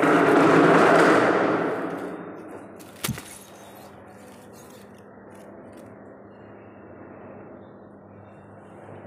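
Artificial plastic hedge panel swung down close past the microphone and laid on the floor: a loud rustle and whoosh of plastic leaves that dies away over about two seconds, followed by a single sharp click about three seconds in.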